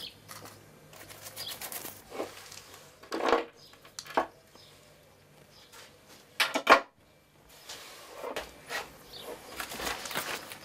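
A spatula scraping hide adhesive out of a plastic tub and spreading it onto a tanned deer skin: irregular short scrapes and taps, the loudest pair a little past halfway, over a faint steady hum.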